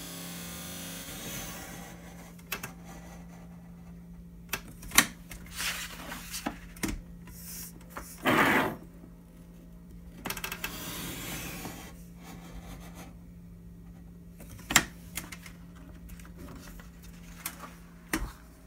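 Fletcher mat cutter being worked by hand: the cutting head slides along its steel rail with a steady scraping hiss at first, then scattered clicks and knocks of the head and blade, and one louder scraping rush about eight seconds in. A steady low hum runs underneath.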